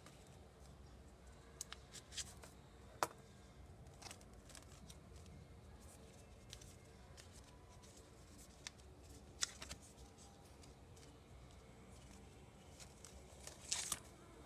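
Cardboard phone box and paper inserts being handled: a few scattered light taps and clicks, the sharpest about three seconds in, and a short rustle of paper near the end, over quiet room tone.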